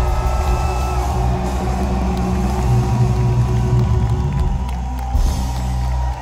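Live rock band playing loudly through a concert PA, with heavy bass and long held notes, until the music cuts off near the end.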